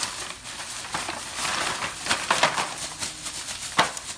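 Thin plastic bag rustling and crinkling as it is handled and pulled open, with a sharper crackle near the end.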